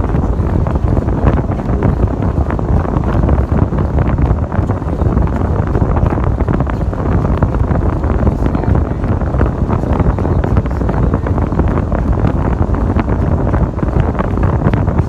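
Steady rumble of a 1996 Ford Bronco truck driving, with wind buffeting the microphone.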